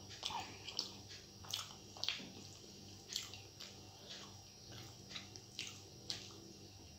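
Close-miked hand-eating sounds: irregular wet clicks and squishes, a couple each second, from chewing and from fingers working rice on a steel plate, over a faint steady low hum.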